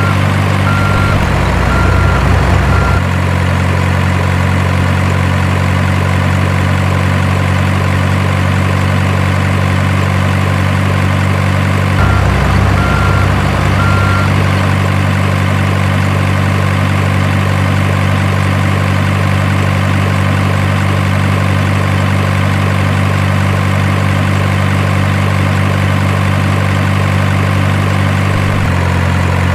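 Heavy truck engine sound idling steadily, with a reversing alarm beeping about once a second for the first few seconds and again briefly around twelve seconds in.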